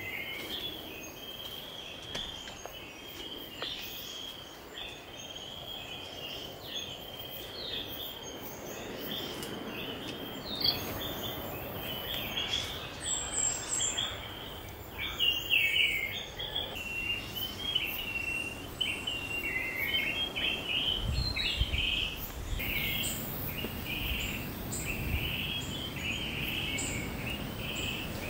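Outdoor ambience of birds chirping and insects calling continuously, a dense run of short, varied chirps. There is a sharp click near the middle and a few soft low thuds about three-quarters of the way through.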